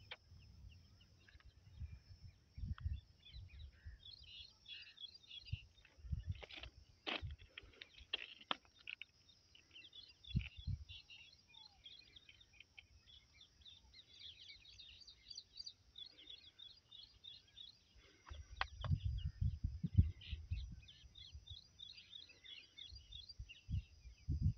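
Small birds chirping repeatedly in quick short calls, over a faint steady high hiss. A few sharp clicks come from about six to nine seconds in, and low rustling and thumping handling noise is loudest about two-thirds of the way through.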